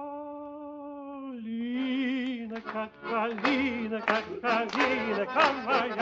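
Music with singing: a long held note fades out, then about two seconds in a voice starts a quick, lively song.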